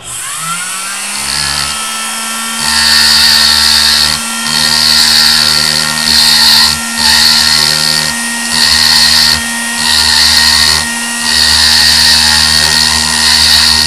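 A Foredom flexible-shaft rotary handpiece spins up with a rising whine, then holds a steady running tone. A rounded cone-shaped burr cuts into a hardened-to-be steel punch in repeated passes of one to two seconds, and the grinding breaks off briefly between passes. This is the rough cut, blending away the background along the punch's outline edge.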